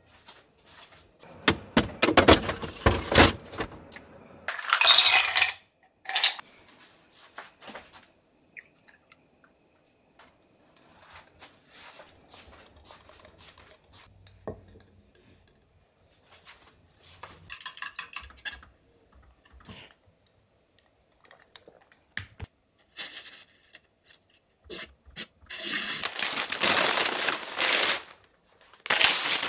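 Intermittent clinks, scrapes and knocks of household items being handled, with a longer, louder stretch of noise near the end.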